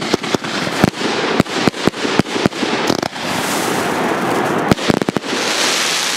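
A 49-shot firework cake firing, its shots going off as sharp bangs about four a second. About three seconds in the bangs give way to a steady fizzing crackle, with a quick cluster of shots near five seconds and then a wide gold burst hissing and crackling.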